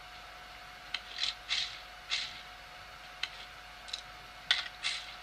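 Mobile shooter game audio from a phone: a run of short, soft scuffs and clicks, about eight at uneven spacing, over a faint steady tone.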